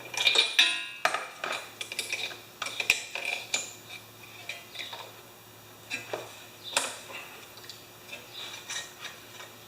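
Metal tools and parts clinking and clattering in irregular knocks, the busiest burst in the first second.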